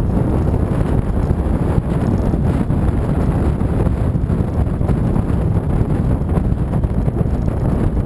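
Wind buffeting the microphone of a camera riding along at road speed on a motorcycle: a steady, loud low rumble, with any engine sound buried in it.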